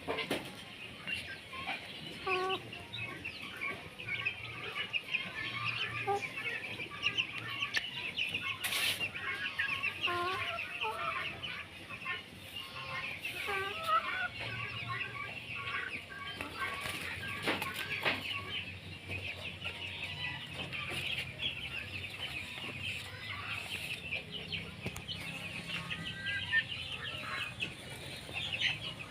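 A flock of silkie chickens clucking and calling, over a constant dense chatter of short, high chirps.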